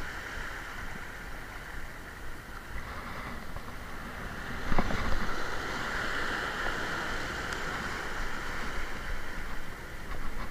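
Sea surf washing over shoreline rocks, with one wave breaking and splashing against the rocks about five seconds in, followed by a few seconds of foaming hiss.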